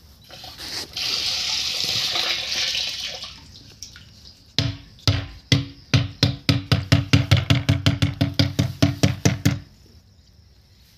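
Pesticide sprayer jet hissing for about three seconds. Then a louder, rapid run of mechanical knocks, about five a second, lasts some five seconds and stops suddenly.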